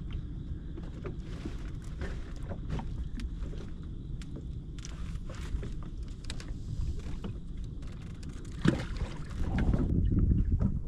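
Low, steady rumble of wind on the microphone aboard a fishing boat, with scattered light knocks and clicks. A sharper knock comes near the end, and the rumble then grows louder.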